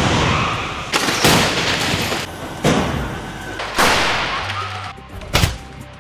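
Car crash-test collisions: a rapid string of loud crashing impacts, roughly one every second, each trailing off in a noisy smash, over background music.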